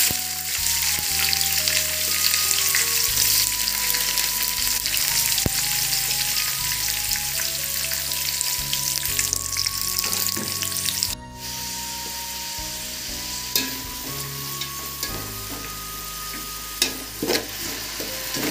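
Sliced onions frying in hot oil and ghee in a metal pot: a loud, steady sizzle that drops in level about eleven seconds in. Near the end a metal spatula stirs them, with a few clicks and scrapes against the pot.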